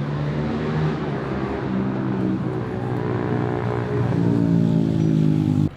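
A car engine revving loudly, its pitch rising and shifting in steps and growing louder as it comes closer, then cut off suddenly near the end.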